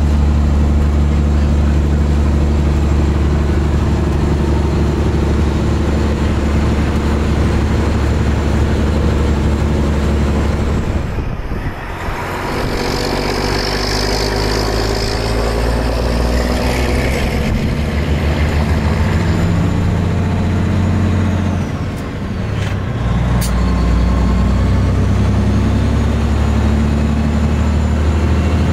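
Semi truck's Detroit Series 60 inline-six diesel engine pulling steadily at highway speed, heard from alongside with road and wind noise. Its drone dips and changes pitch briefly twice, about twelve and twenty-two seconds in.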